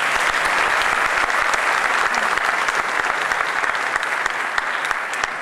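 Audience applauding: dense, steady clapping that thins into separate claps and fades near the end.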